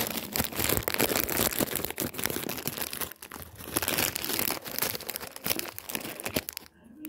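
Loud, dense crinkling and rustling close to the microphone, stopping abruptly near the end.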